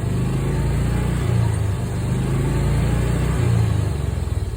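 Club Car DS golf cart's old, worn gas engine running on freshly changed oil, its pitch rising and falling a few times as the throttle is worked. It runs without bogging down.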